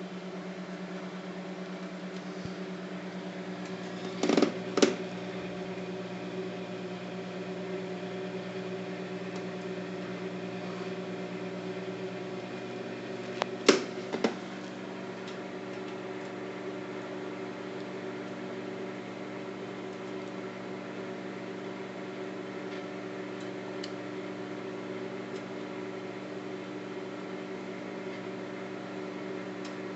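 Microwave oven running with a steady hum. Two pairs of short sharp knocks, each pair about half a second apart, stand out about four seconds in and again about fourteen seconds in.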